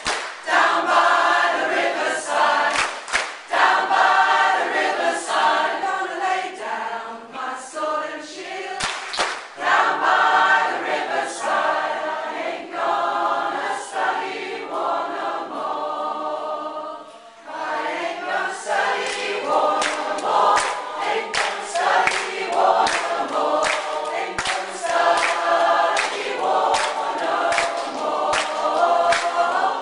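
A community choir singing a song together. The singing dips briefly a little past halfway, then carries on with the singers clapping their hands in time.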